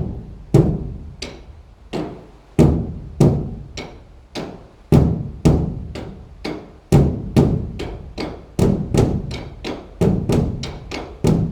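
Struck percussion, a drum or wooden instrument beaten with sticks, in a quickening rhythm. It starts at about one stroke every half-second and speeds up to two or three strokes a second near the end. Each stroke is sharp and dies away quickly rather than ringing on like a bell.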